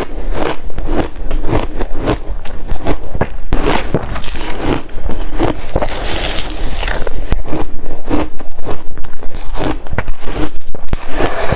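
Close-up crunching of shaved ice being bitten and chewed, loud and crackly. In the last third it settles into a quick, even chewing rhythm of about four to five crunches a second.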